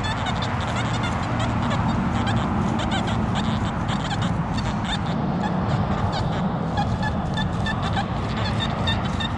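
A flock of birds calling densely, with many short honks and chirps over a steady low rumble. In the last couple of seconds a short high tone repeats several times a second.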